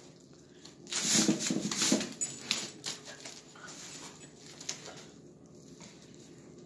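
A small dog making brief vocal noises while it roots in and tugs at a fabric shopping bag, the bag rustling; the loudest burst comes about a second in, then softer rustling.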